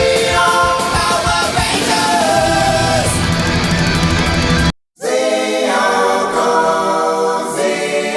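Rock music with singing, loud and full. About five seconds in it cuts out for a moment, then comes back without its bass.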